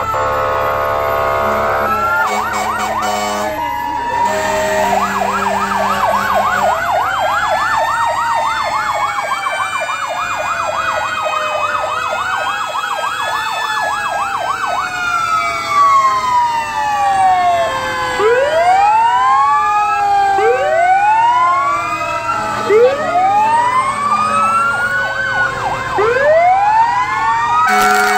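Several fire truck sirens sounding at once: fast yelping warbles and slow rising-and-falling wails, then a run of short rising whoops about every two seconds in the second half. Steady horn blasts sound near the start.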